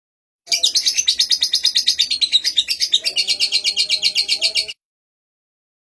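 Contest songbird singing a fast, even run of repeated high notes, about ten a second, for roughly four seconds; it starts about half a second in and cuts off suddenly.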